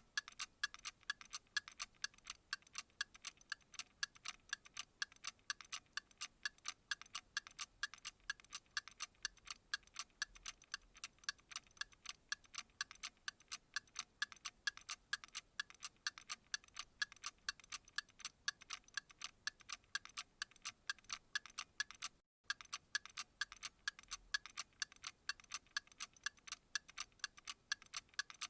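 Clock ticking at a steady, even rate: sharp, bright ticks with little low end. The ticking drops out for a split second about 22 seconds in.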